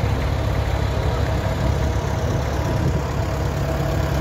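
David Brown Cropmaster tractor's engine running steadily at low speed as the tractor drives slowly past.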